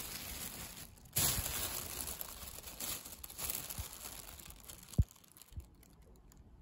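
A thin plastic bag full of clipped cat fur crinkling and rustling as it is handled, in uneven bursts. There is a soft thump about five seconds in.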